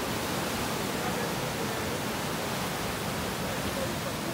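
Ocean surf breaking and washing into foam, a steady rushing hiss.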